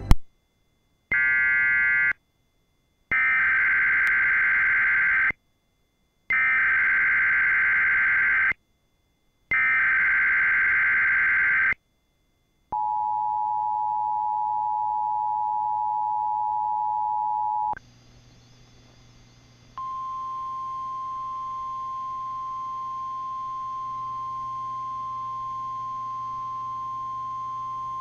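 Emergency Alert System tones. First a short burst and then three longer, evenly spaced bursts of warbling digital SAME header data. Then the two-tone attention signal sounds for about five seconds, and after a brief pause a single, slightly quieter steady tone runs for about nine seconds.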